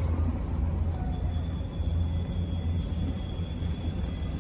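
Steady low rumble of road traffic, with a faint thin high tone from about a second in.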